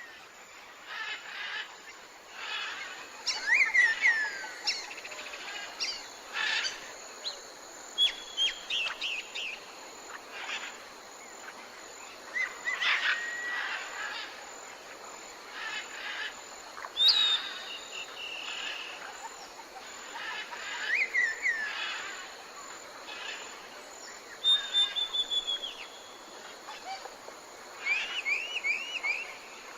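Wild animal calls in natural outdoor ambience: short high chirps and whistled notes, some gliding down in pitch, scattered every second or two, with a quick run of three or four arched notes near the end.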